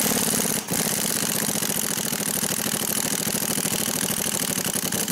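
Pneumatic impact wrench hammering a rusty castle nut off a tie rod end stud, running almost without a break, with a brief pause about half a second in, then stopping sharply at the end.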